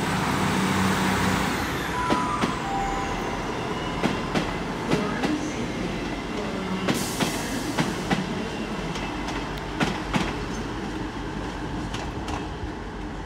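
A Class 158 diesel multiple unit pulls away and runs off, its diesel engines fading out within the first couple of seconds. Its wheels tick over the rail joints many times as it goes, and the whole sound slowly dies away.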